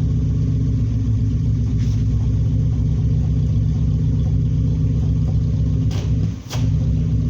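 Exhaust of a 1998 Chevy Pop's four-cylinder engine idling steadily with a low rumble. It runs through a bullet-type muffler and new pipe in place of the original resonator, with the catalytic converter still fitted. About six and a half seconds in the sound briefly drops out with a click.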